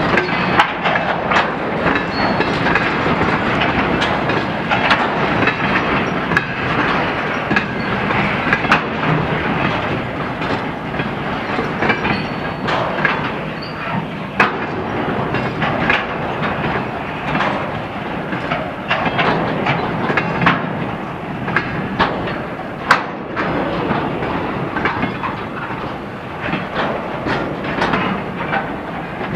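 Long freight train of tank cars rolling past, its wheels clacking steadily over the rail joints.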